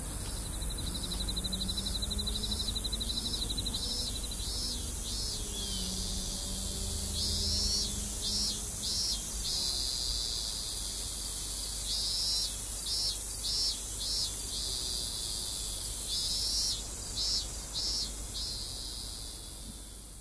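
Insect and bird ambience: a steady high insect drone with a fast buzzing trill over the first few seconds, then short chirps in groups of three to five, repeating every few seconds. A faint low rumble runs underneath.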